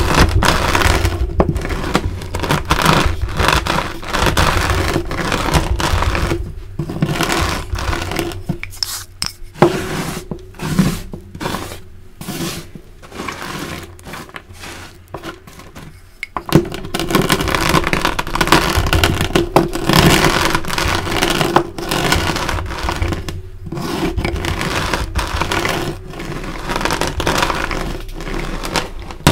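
Rolling pin crushing and grinding chunks of dyed gym chalk into powder: a dense, crunchy crackle and scrape. It is quieter and patchier in the middle, where a hand spreads and pushes the crushed pieces, then the rolling starts again louder.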